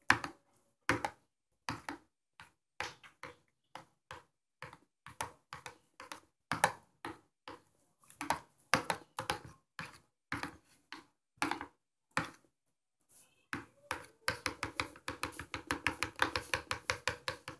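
A spoon clacking and scraping against a plastic bowl while stirring a paste: irregular clicks, about two or three a second, that grow quicker and denser in the last few seconds.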